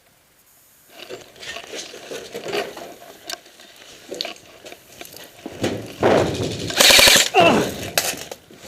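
Airsoft guns firing: scattered shots, then a loud rapid burst about seven seconds in.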